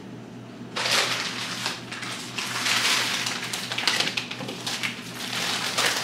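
Crinkling and rustling of plastic frozen-food packaging being handled and shuffled around, starting about a second in.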